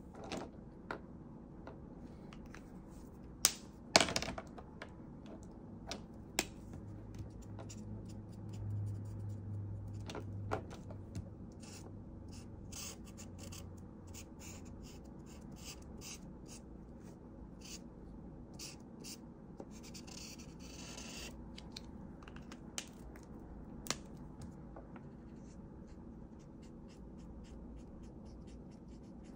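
Ohuhu alcohol markers stroking and scratching across paper in short strokes, with one longer stretch of rubbing about two-thirds of the way in. Two sharp clicks a moment apart are the loudest sounds, and a low hum swells for several seconds about a third of the way in.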